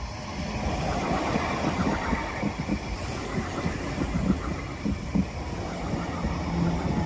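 Tram passing close by on snowy track: a rumble of wheels on rail that builds over the first second, with a low steady hum under it and frequent short low knocks.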